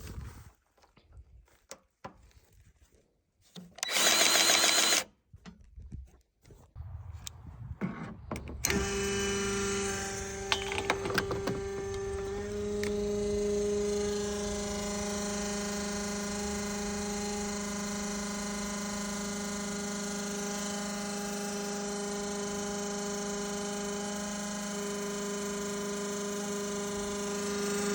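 A motor-driven machine starts about nine seconds in and runs at a steady, even pitch, with a few sharp clicks soon after it starts. Before that there are scattered clicks and one brief loud hiss.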